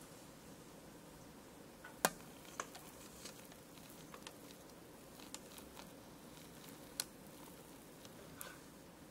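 Thick brownie batter pouring from a mixing bowl into a parchment-lined pan: soft squishy plops with a scattering of light clicks and taps, the sharpest about two seconds in and another about seven seconds in.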